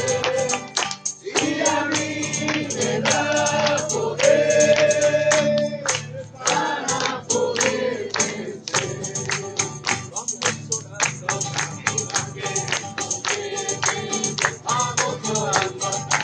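Group singing a Christian worship chorus, with long held notes over a steady beat of sharp percussive strikes.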